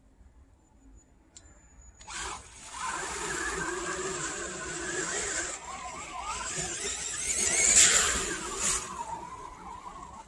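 Brushless electric RC truggy (4274 2200kv motor, Hobbywing MAX8 ESC) driving through a muddy puddle: a high motor whine that rises and falls with the throttle, mixed with water and mud spraying off the tyres. It starts about two seconds in, is loudest just before eight seconds, then the whine falls in pitch.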